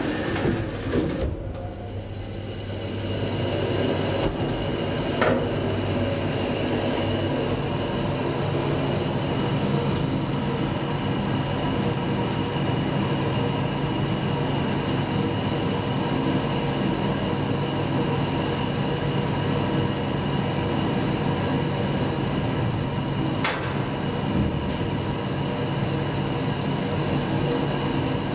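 Traction elevator car travelling down its shaft: after a quieter start it settles about three seconds in into a steady running hum with a thin high whine, with one sharp click near the end.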